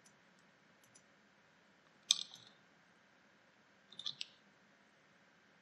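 Faint computer mouse clicks: one sharper click about two seconds in, then a quick cluster of clicks about four seconds in.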